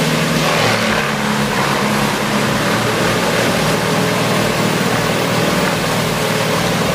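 Large drum wood chipper running steadily: its engine drone with a dense grinding noise from wood being chipped.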